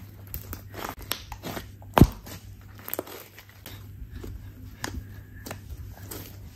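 Soft slime mixed with clay being kneaded and folded by hand, giving irregular sticky clicks and squishes, with one loud thump about two seconds in.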